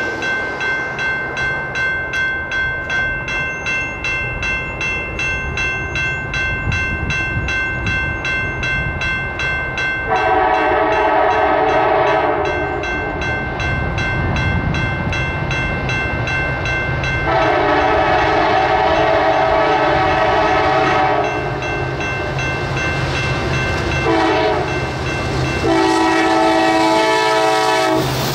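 EMD SD70ACe diesel locomotive approaching at the head of a freight train and sounding its chord horn in the grade-crossing pattern: two long blasts, one short and a final long one, starting about ten seconds in. Under the horn the engine and train rumble grows as it nears, and a rapid, steady bell-like ringing runs through the first half.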